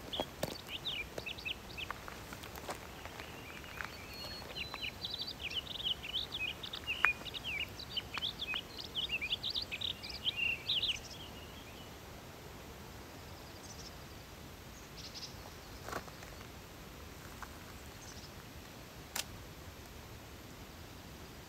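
A small bird twittering in quick, high chirps for about the first half, then stopping, leaving a steady outdoor hiss broken by a few sharp clicks.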